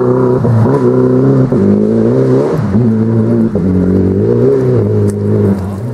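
Rally car engine revving hard out of sight, its pitch climbing and dropping about once a second with gear changes and lifts, falling off in level near the end.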